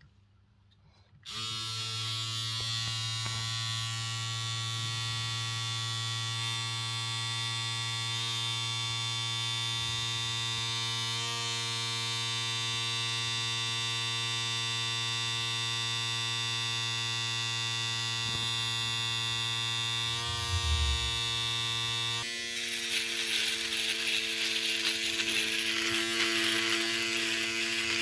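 Electric shaver switched on about a second in, then running with a steady vibrating buzz. About three-quarters of the way through there is a brief low thump, and the buzz turns rougher and hissier.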